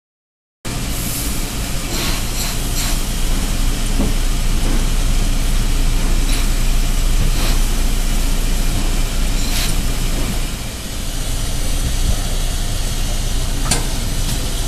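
Steam pressing equipment in a dry-cleaning shop: a steady machine drone with a constant low hum, broken by several short hisses. It starts abruptly just under a second in.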